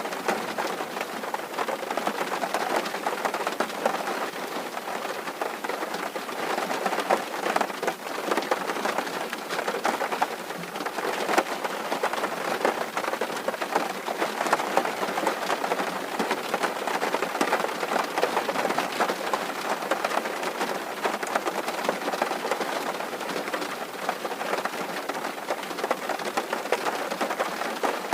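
Steady rain drumming on a tin roof: a dense patter of countless small drop impacts on the metal sheeting, even throughout.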